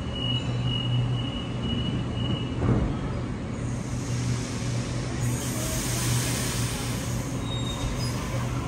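Sydney Trains Waratah A-set electric train at the platform: a steady high door-warning tone sounds and stops, the doors shut with a short thud a bit under three seconds in, and the train starts to pull away. A high hiss builds and swells over the steady low hum of the train's equipment.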